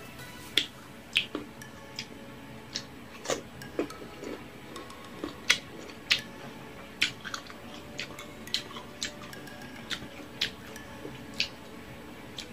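Close-miked mouth sounds of someone eating saucy barbecue pork ribs: wet lip smacks and tongue clicks while chewing, irregular, about one or two a second.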